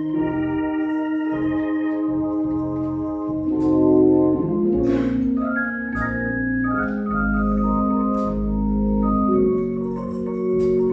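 Organ playing slow, sustained chords, the held notes changing every second or two.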